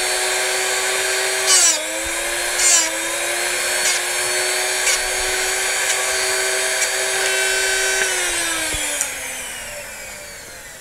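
Drill Doctor drill-bit sharpener running with a steady motor whine, with two short grinding rasps about a second apart as the carbide tip of an SDS masonry bit is ground, the motor dipping slightly in pitch under the load, then a few light ticks. About eight seconds in it is switched off and the whine falls steadily in pitch as it spins down.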